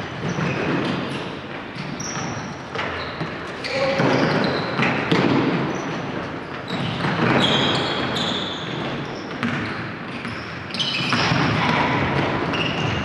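Futsal being played on a wooden gym floor: short high shoe squeaks, the ball being kicked and bouncing, and players calling out, ringing in a large hall.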